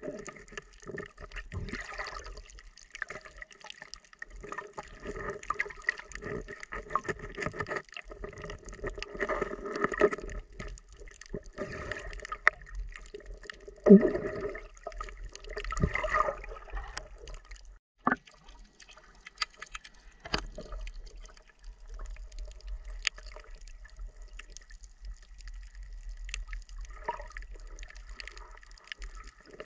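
Underwater sound heard through an action camera's waterproof housing: muffled water movement and bubbling, with many short sharp clicks and a louder whoosh about 14 seconds in.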